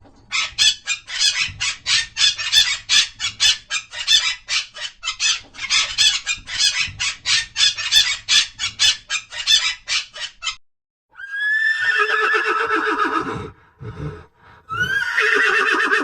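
A rapid train of short, high-pitched chirps or clicks, about four to five a second, for roughly ten seconds. After a short gap comes a horse whinnying: a long, quavering call that falls in pitch, and a second whinny near the end.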